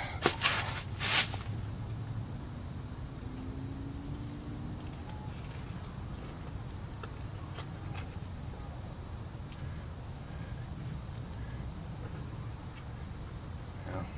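Steady high-pitched chorus of crickets over a low rumble, with a few sharp knocks about a second in.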